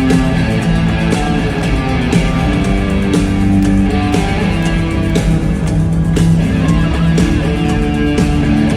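Live rock band playing an instrumental passage led by electric guitar, with bass and drums, in a large arena.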